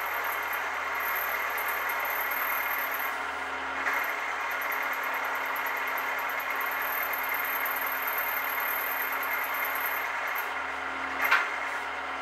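Mill-drill running at 600 rpm with a four-flute end mill cutting into the workpiece, a steady machining noise with a high whine above it that drops out briefly twice. A short sharp knock near the end.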